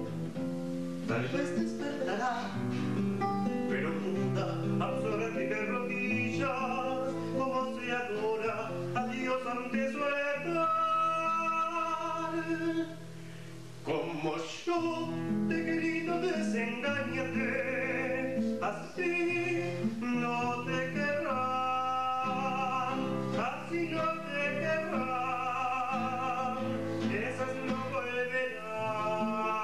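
Acoustic guitar playing, accompanied by a singing voice with a strong vibrato, with a brief drop in level about two thirds of the way through.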